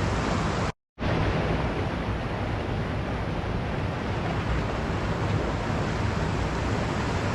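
Waterfall rushing, a steady even roar of falling water. About a second in the sound drops out to silence for a moment and comes straight back.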